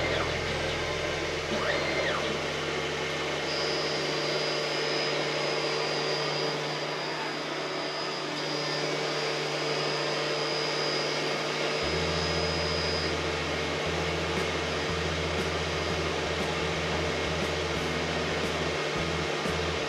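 Optical lens-processing machine running steadily as it cuts and shapes a 1.74 high-index eyeglass lens, a whirring hum with a thin high whine that stops around the middle and a change in the low hum shortly after.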